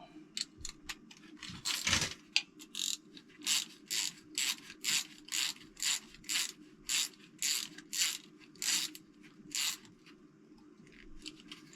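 Hand socket ratchet wrench in quick back-and-forth strokes, a rasp of clicks on each stroke at about two a second, running a bolt in; a few scattered clicks come before the steady run, and it stops shortly before the end.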